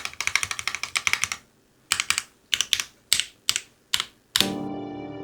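Typing on a Baion Synovia custom mechanical keyboard: a quick run of keystrokes for about a second and a half, then short clusters of key clacks about every half second. Near the end, a sustained, slowly fading tone of several pitches sets in.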